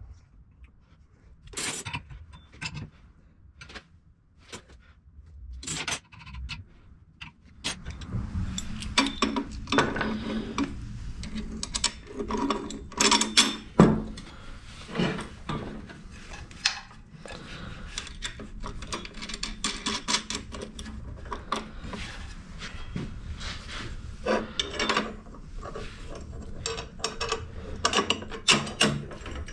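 Small steel parts and hand tools being handled and fitted: scattered clicks, taps and metal clinks with some rubbing and scraping, as brake rods and linkage arms go onto a model steam locomotive's frame. A steady low hum runs under it for several seconds in the middle.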